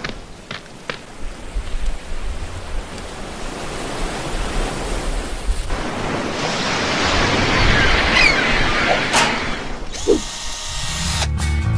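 Steady rushing noise of surf washing in, swelling about six seconds in, with a couple of sharp clicks soon after the start. Music begins near the end.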